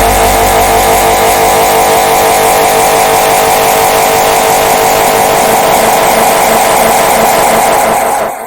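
The red bird laughing meme sound effect layered over itself so many times that the copies merge into a loud, dense, steady drone. It cuts off abruptly at the end.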